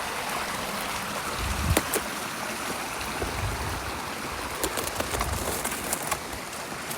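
Flowing stream water running steadily, with a few soft thumps and clicks about a second and a half in and again around five seconds in.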